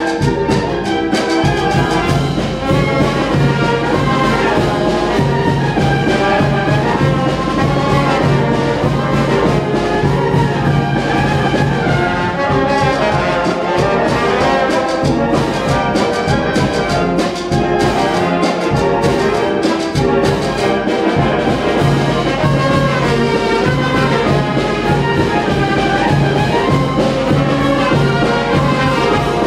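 Brass band playing a dance tune, its melody over a low held bass note that drops out for a few seconds past the middle.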